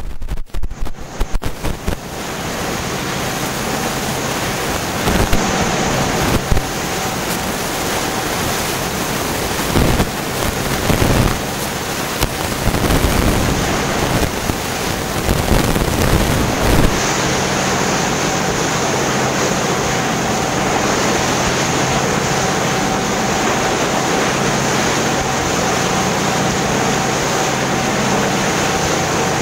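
Tour boat running under way: a steady engine hum under the rush of water and wind, with wind buffeting the microphone in gusts for the first half before the sound settles to an even level.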